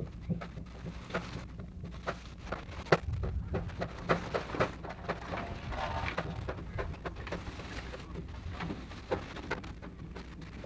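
Crackling, skipping playback of a badly deteriorated 16mm magnetic film soundtrack: irregular clicks and pops over a steady low hum.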